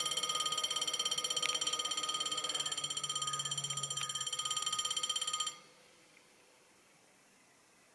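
Level-crossing warning bell ringing in rapid pulses while the barriers come down. It cuts off suddenly about five and a half seconds in, once the barriers are fully down, leaving only faint background.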